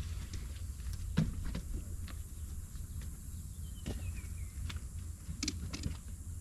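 Quiet pond-side ambience: a steady low rumble with scattered small clicks and taps of fishing tackle being handled at close range, and one faint falling whistle a little before the middle.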